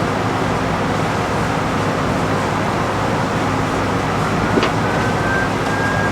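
Steady background hum throughout. About two-thirds of the way in there is a single sharp click as the helmet's visor side plate snaps into place.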